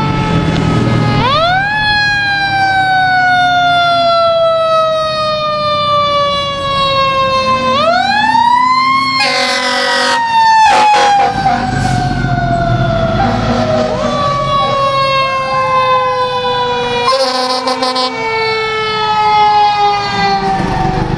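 Fire apparatus sirens wailing as Clifton Fire Department Truck 2 and Engine 5 pass. One siren rises quickly and then falls slowly over several seconds, twice, and a second siren wails alongside it in the second half. Short horn blasts come about nine seconds in and again near the end.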